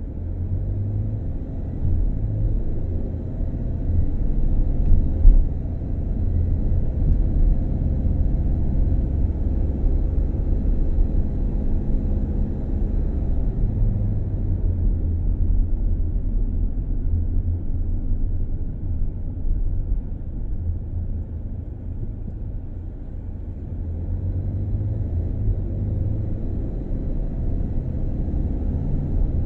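Road and engine noise inside a moving vehicle's cabin: a steady low rumble, with a single thump about five seconds in.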